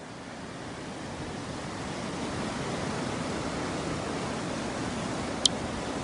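Rough sea surf breaking over rocks: a steady rush that builds over the first few seconds and then holds, with one short sharp click near the end.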